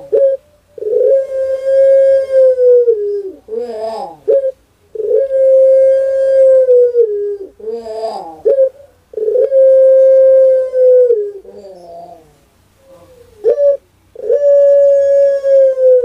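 A caged collared dove (ringneck dove) cooing: four long, steady coos of about two seconds each, each sliding down in pitch at the end, with short broken notes in between.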